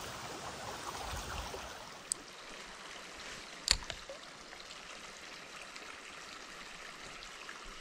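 Shallow trout stream running steadily, a constant rush of water, with a single sharp knock about three and a half seconds in.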